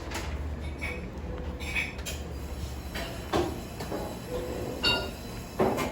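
Low, steady road rumble inside a car's cabin, jolted by a rough, bumpy road. Loose things knock and rattle several times, loudest near the end.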